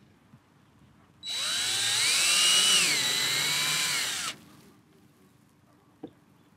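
Power drill running for about three seconds, boring a hole into the kayak's hull. Its whine climbs and then sags slightly before it stops.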